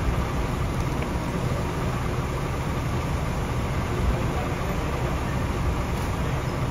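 Coach bus engine idling at the kerb: a steady low rumble.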